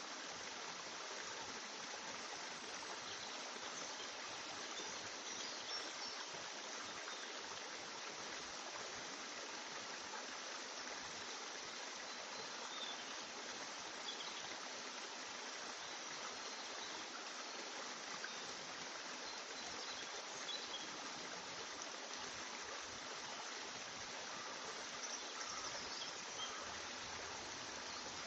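A steady rushing noise like flowing water.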